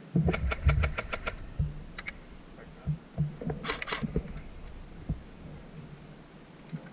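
Airsoft gun firing: a quick burst of about eight or nine sharp clicking shots in the first second, a shot or two about two seconds in, and another short burst around the middle.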